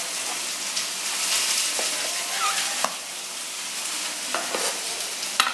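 A steady sizzling hiss, like hot fat in a pan, while a knife cuts through a baked stuffed pork roll, with a few light knocks on a wooden cutting board.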